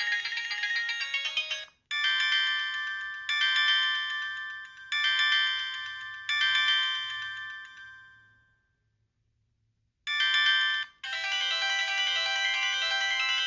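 Built-in ringtones of a Sanyo Vero cell phone playing one after another. One melody ends about two seconds in, and the next is four chime-like phrases, each fading away, dying out past the middle. After a short silence a brief snippet sounds, then a busier, continuous ringtone begins near the end.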